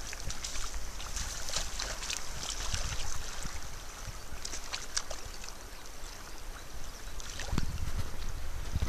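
Fast river water rushing, with small sharp splashes from a hooked fish thrashing at the surface and hands reaching into the water. Wind buffets the microphone with low rumbles, heaviest near the end.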